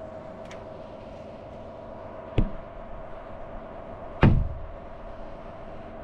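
Two sharp knocks about two seconds apart, the second louder and heavier, over a steady hum.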